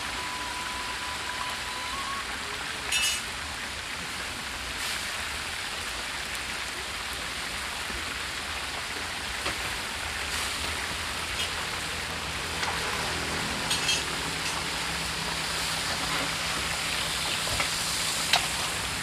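Chapli kababs deep-frying in a large pan of hot oil, a steady sizzle, with a few sharp metal clinks from the spatula and strainer against the pan.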